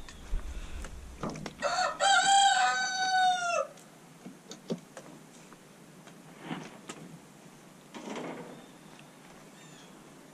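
A rooster crows once: one call of about two seconds starting about a second and a half in, dropping in pitch at the end. A few knocks and rustles come from the wire fence and netting of the chicken run being handled.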